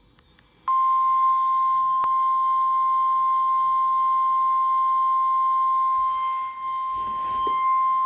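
Emergency Alert System weather alert tone: a single steady, loud 1050 Hz tone of the kind NOAA Weather Radio sends, starting just under a second in, signalling that a warning or watch message is about to be read. A brief burst of noise cuts across it about seven seconds in.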